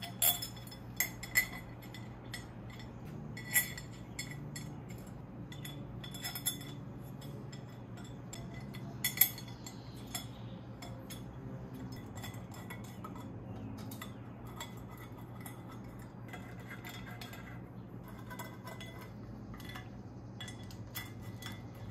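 Metal clicks and clinks from a hand ratchet and loose metal hardware as a coolant water pipe is bolted onto a BMW S54 cylinder head: many light ticks with a few sharper knocks in the first nine seconds.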